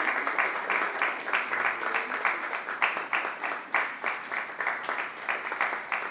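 Audience applauding, with individual hand claps standing out in an irregular patter.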